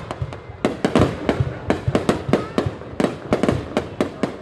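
Fireworks display: many bangs in quick, irregular succession, several a second, each with a short low boom.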